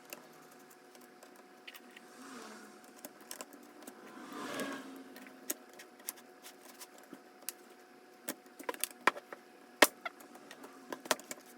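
Scattered sharp clicks and taps of small screws and a screwdriver being handled on a laptop's bottom cover, growing busier in the second half. There is a brief louder rustling swell about four and a half seconds in.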